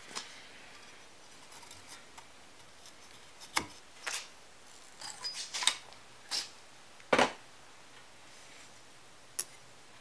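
Scattered sharp metal clicks and snips from a hand tool and the terminal clamps and braided metal straps being fitted to the ends of silicon carbide furnace heating elements. The loudest click comes a little after seven seconds.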